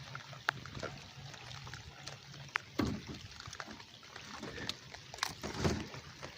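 Water sloshing against a boat, with scattered light knocks and clicks.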